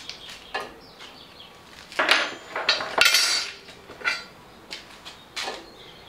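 Steel hand wrenches clinking and rattling as they are handled and fitted onto a nut on the bandsaw. It is a run of irregular metallic clinks, loudest in a cluster about two to three seconds in.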